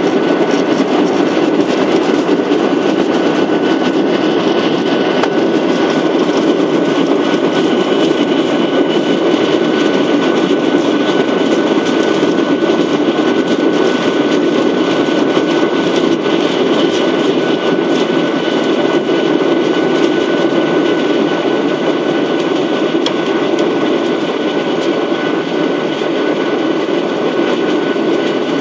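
Boeing 737-800 heard from inside the cabin while taxiing. Its CFM56 jet engines run steadily at low power with a thin steady whine, and the landing gear rumbles and clatters lightly over the taxiway.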